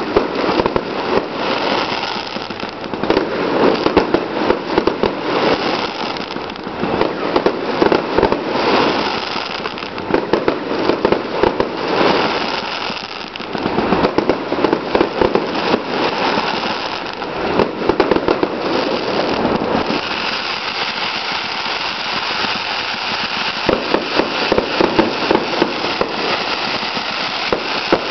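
Fireworks going off in quick succession: a dense run of rapid bangs and crackling. It eases briefly about halfway through and turns to a steadier crackle near the end.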